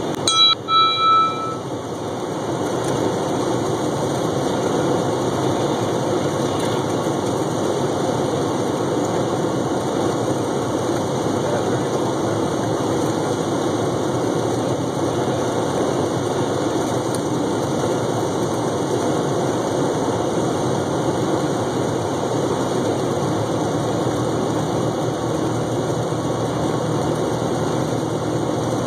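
Single-engine propeller airplane's engine and propeller droning steadily, heard inside the cockpit. A short, high tone sounds briefly near the start.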